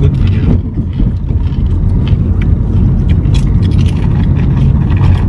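Steady low rumble of a moving car heard from inside the cabin, with scattered light clicks and rustles over it.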